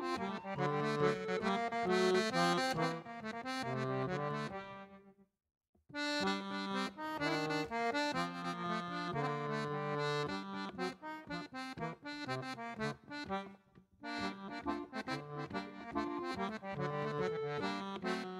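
Accordion playing a Breton dance tune. The music stops dead for about a second around five seconds in, then starts again, with another brief drop a few seconds before the end.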